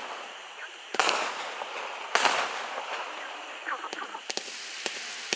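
A 36-shot 200g consumer fireworks cake firing: two loud sharp shots about a second and two seconds in, each trailing off over about a second, then several smaller sharp cracks near the end.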